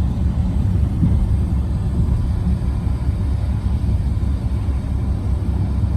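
Loud, steady low rumble with no clear pitch or rhythm.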